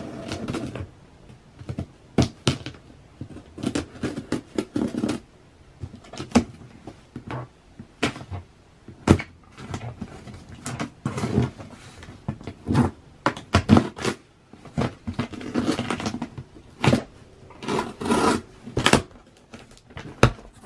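Cardboard shipping box being opened by hand: sealing tape slit and pulled off, and the flaps worked open, with irregular knocks and rustling, scraping cardboard noise.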